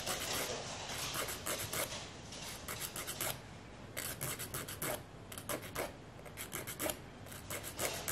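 Nail file rasping across fingernails in quick runs of short strokes with brief pauses, roughing up and blending the grown-out gel nails ahead of a fill.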